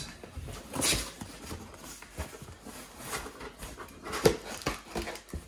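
A knife slicing through packing tape and cardboard, with cardboard scraping and rustling in several short bursts and a sharp knock about four seconds in.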